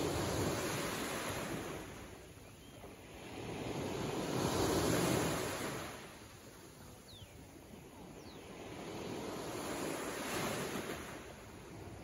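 Small waves of a calm Mediterranean Sea washing onto the shore, the surf swelling and falling away three times, about every five seconds.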